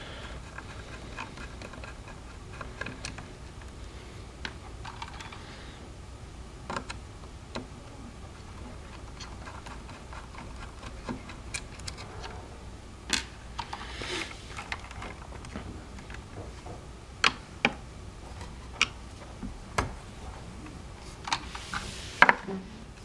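Scattered light clicks and taps of hands working on wire connectors and parts at the logic board inside an opened hoverboard, with a few sharper clicks and brief rustles in the second half.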